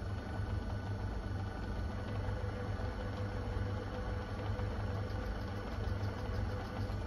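Small metal lathe running at a steady speed, its motor and drive giving a steady low hum with a faint higher whine, a drill spinning in the headstock chuck.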